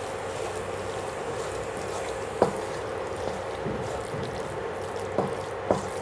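Wooden spatula stirring a moist vegetable masala in a kadhai, with soft frying sounds over a steady hum. The spatula knocks against the pan a few times: loudest about two and a half seconds in, then twice near the end.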